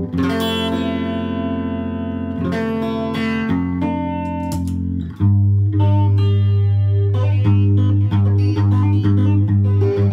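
Telecaster-style electric guitar playing slow, sustained, ringing notes through effects pedals. About five seconds in, a deep low note comes in and the playing gets louder.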